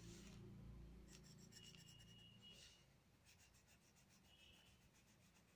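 Faint scratching of a coloured pencil shading on workbook paper, with a run of quick back-and-forth strokes in the second half.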